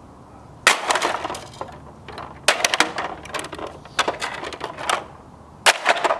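A concrete block slammed down onto a plastic toy van four times, roughly a second and a half apart. Each strike lands with a sharp crunch, followed by the crackle of the plastic body cracking and splintering.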